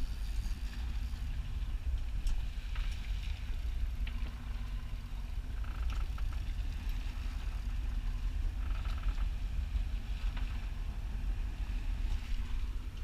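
Sportfishing boat's engines running at low speed, a steady low rumble, with faint wind and water hiss over it.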